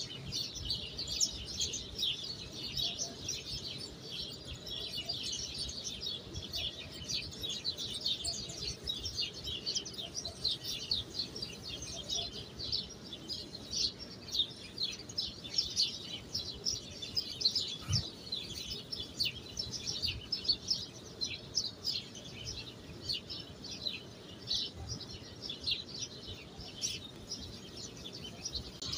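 Many small birds chirping continuously in a dense, overlapping chatter, with one soft knock about two-thirds of the way through.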